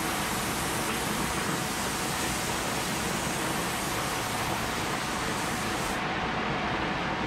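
Steady hiss of a DeVilbiss spray gun laying down clear coat, over the steady rush of the inflatable paint booth's fans. The highest part of the hiss drops away about six seconds in.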